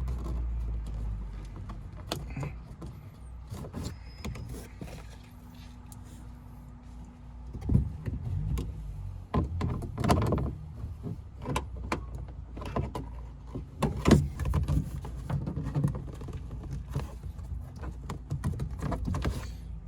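Plastic car interior trim being pried and handled: irregular clicks, knocks and creaks as the C-pillar trim panel is worked against its retaining clips, with a few sharper knocks partway through.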